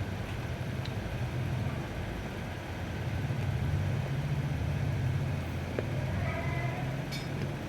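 Steady low rumble, with faint brief tones about six seconds in.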